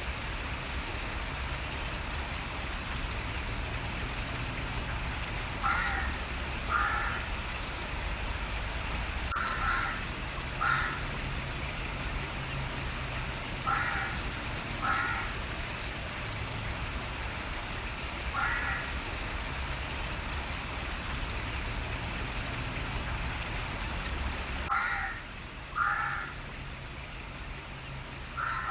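A crow cawing, short caws mostly in pairs about a second apart, repeated every few seconds over the steady rush of running water.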